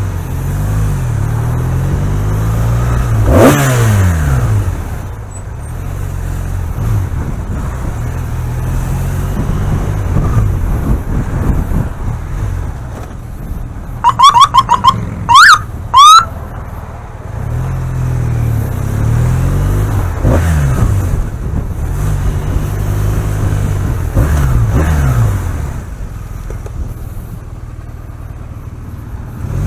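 Police motorcycle engine running at low speed, revving up and easing off several times. About halfway through, a quick run of short rising siren chirps, then two longer whoops, the loudest sound here.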